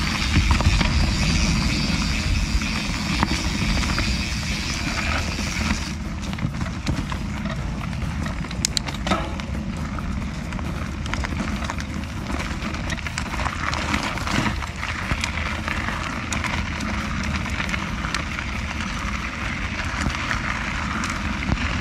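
Canyon Spectral CF full-suspension mountain bike riding a dirt trail: tyres rolling over dirt and rock with a steady low rumble, and the bike rattling and knocking over bumps, with a couple of sharper knocks partway through.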